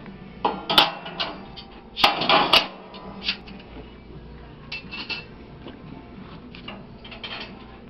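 Metal grill grates clanking and scraping as they are lifted and set down in a gas grill's firebox. A burst of clatter about two seconds in is the loudest, followed by lighter knocks.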